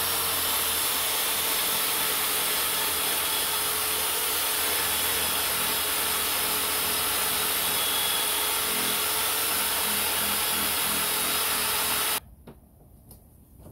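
Corded electric drill spinning a dry polishing pad against a plastic motorcycle fuel tank, running steadily. It stops suddenly about twelve seconds in, followed by a couple of faint clicks.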